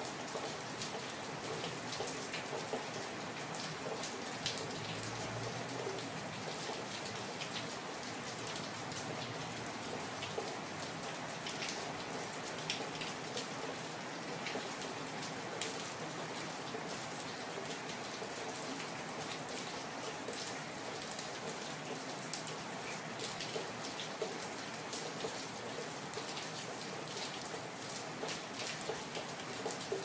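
Steady rain falling on a street: an even hiss with many separate drops striking close by as frequent sharp ticks.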